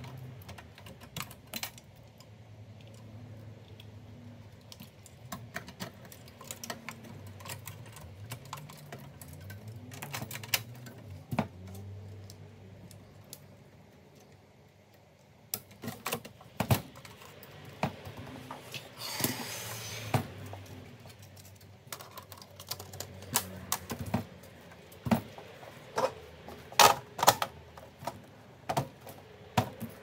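Scattered clicks, taps and knocks of plastic and metal computer parts being handled: a hard drive in its plastic caddy fitted into a small desktop PC case and its cables pushed home. The knocks come sparsely at first and grow louder and more frequent in the second half, with a short rustle partway through.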